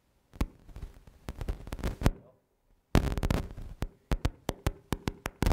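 Microphone crackling and popping in runs of sharp clicks, cutting out to dead silence for just under a second midway, then crackling again. The microphone is faulty and cutting in and out.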